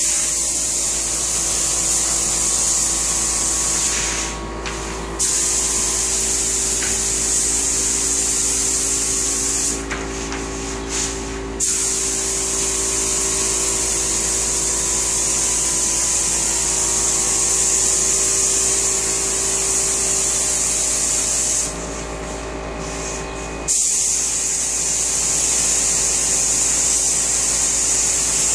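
Compressed-air spray gun spraying a top coat of finish onto cabinets: a loud, steady hiss of air and atomised finish that stops three times for one to two seconds as the trigger is let off, about four, ten and twenty-two seconds in. A steady low hum runs underneath.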